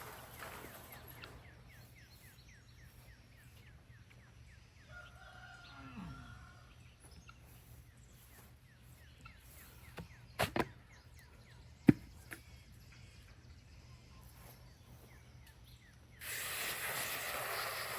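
A rooster crowing faintly about five seconds in, over a low steady hum. Two knocks about halfway, then a single sharp, loud click a second later, the loudest sound here; a rush of noise comes in near the end.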